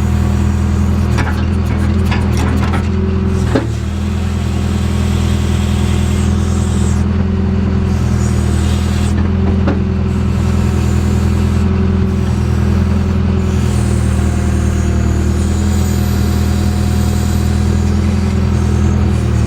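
Diesel engine of a JCB backhoe loader running steadily while digging, with a few sharp knocks in the first few seconds and a thump about three and a half seconds in.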